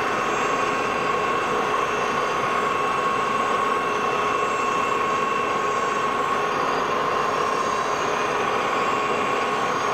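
Tool post grinder's electric motor and wheel spinning free inside the jaws of a slowly turning 3-jaw chuck on a 1953 Lodge & Shipley lathe, not yet touching the jaws. A steady machine hum with a high, even whine held throughout.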